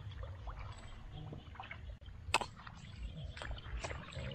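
Shallow water sloshing and splashing in small, irregular bursts over a low rumble, with one sharp click a little over two seconds in.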